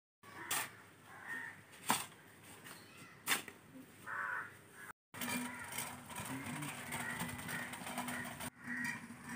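A hoe chopping into garden soil: three strikes about a second and a half apart, with crows cawing. After a break halfway through, a steady hum with wavering tones takes over.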